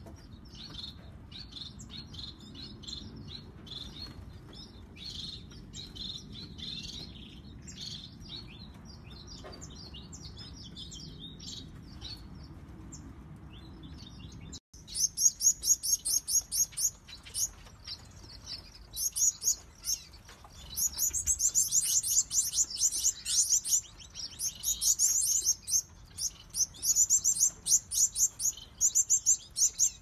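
Cage finches chirping: soft, scattered high chirps over a low steady hum, then about halfway in much louder runs of rapid, very high chirps.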